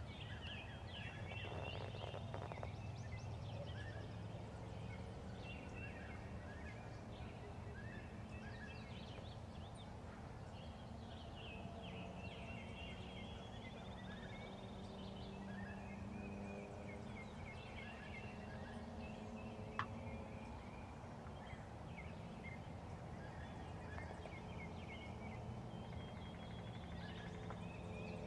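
Wild turkeys gobbling faintly in the distance, with songbirds chirping and singing throughout. A single sharp click comes about two-thirds of the way in.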